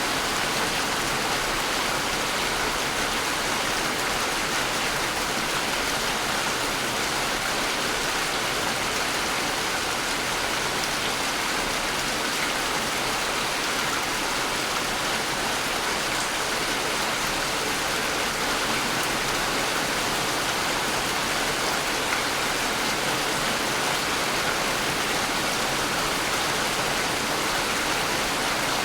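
Steady rain falling, an even, unbroken hiss with no pauses or changes.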